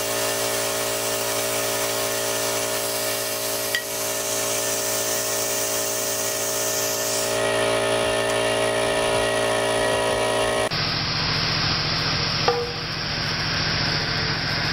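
Electric air compressor running loudly: a steady motor hum with a broad hiss. The sound shifts abruptly about 11 seconds in, and a single short knock is heard a little later.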